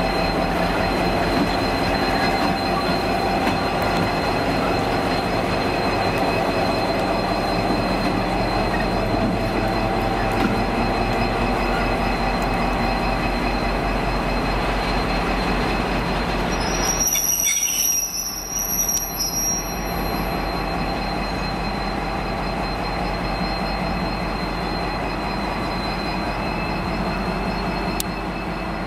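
A V/Line diesel locomotive running as it shunts slowly, a steady engine drone with a thin high-pitched whine over it. The sound dips and wavers briefly a little past halfway through, then settles again.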